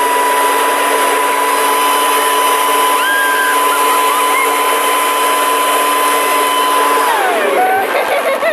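Leaf blower running steadily with a rushing blast of air and a steady whine, blowing into a child's face; about seven seconds in, its pitch slides down as it winds down.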